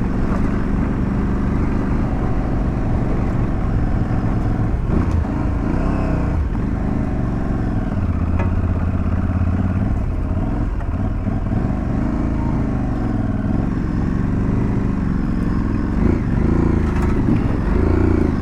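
Aprilia Tuareg 660's parallel-twin engine running under way, its pitch rising and falling over and over as the throttle is opened and closed.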